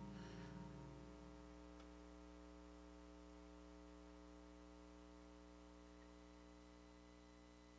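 Near silence: a faint, steady electrical mains hum, with the last of the music fading out about a second in.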